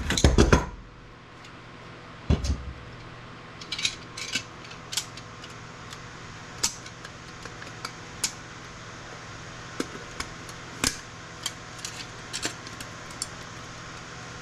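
Hand tools working on circuit boards: a loud clatter at the start, a heavier knock about two seconds in, then scattered sharp metallic clicks and clinks as steel shields and parts are pried and snapped off the boards.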